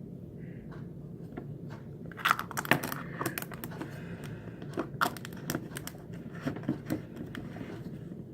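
Glitter being shaken and tapped out of a plastic container into the slime: a rustling, clicking cluster about two seconds in, then scattered single clicks.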